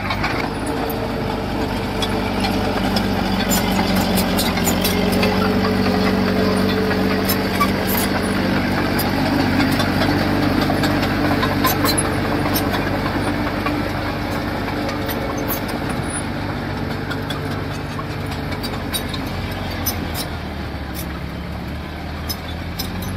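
Diesel engine of a heavy construction machine running under load, with scattered clicks and clanks over it. The engine swells over the first few seconds and eases off somewhat in the second half.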